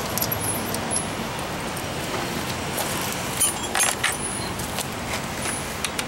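Steady hum of road traffic, with a few light metallic clinks a little past the middle as the nuts and fork cap come off the front fork studs by hand.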